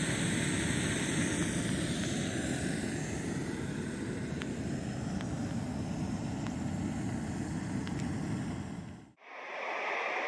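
Portable gas canister stove burning under a pot: a steady rushing noise with a few faint ticks. It cuts off abruptly about nine seconds in, leaving a fainter hiss.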